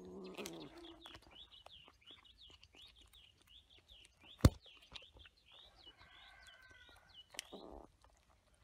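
A small bird chirping over and over, about three chirps a second, while a kitten crunches dry kibble from a bowl. A single sharp click comes about halfway through, and a short low pitched sound opens the stretch.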